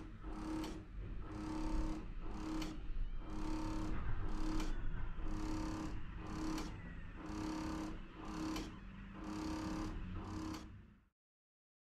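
Vacuum suction unit of an interferential-current therapy machine pulsing the suction-cup electrode on the back: a rhythmic hum and hiss repeating a little faster than once a second. It cuts off suddenly near the end.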